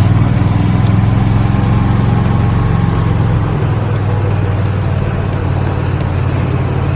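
Steady low drone of a motor vehicle's engine running at an even pitch.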